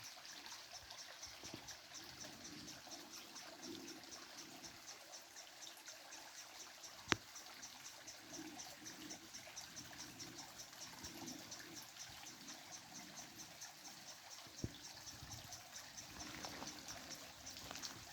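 Faint nature ambience: an insect chirping in a steady, evenly spaced high pulse over a soft trickle of water. A single sharp click about seven seconds in, and a smaller one a little before the end.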